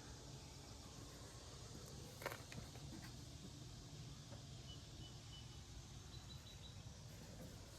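Near silence: faint outdoor background hiss, with a single light click about two seconds in and a few faint high chirps later on.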